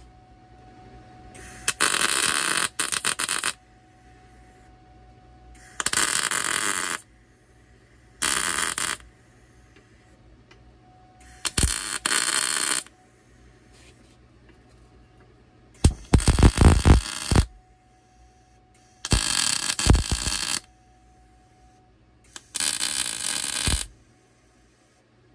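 Wire-feed welder arc crackling and hissing in seven short welds, each about one to two seconds long, as a steel ring frame is tack- and stitch-welded. A faint steady hum fills the pauses between welds.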